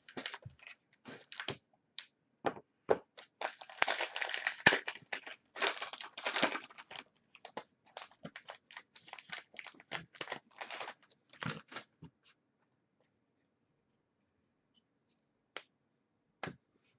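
Trading card pack wrappers being torn open and the cards handled: a run of crinkling, tearing and small clicks, densest about four to seven seconds in, that stops about twelve seconds in, followed by two soft taps near the end.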